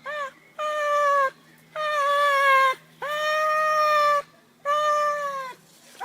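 A cat meowing over and over, about five drawn-out meows a second or so apart, each dipping slightly in pitch at the end.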